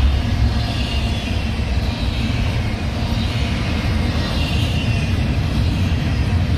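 Double-stack intermodal freight train's container well cars rolling past, their steel wheels on the rails giving a loud, steady rumble with a hiss above it.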